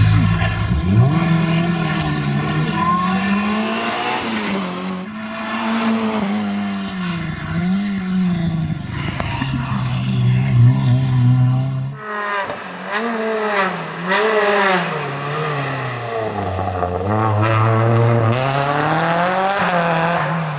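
Rally car engines revving hard, their note repeatedly climbing and dropping with throttle lifts and gear changes. First an orange Peugeot 106, then, after a cut about twelve seconds in, a white Renault Clio.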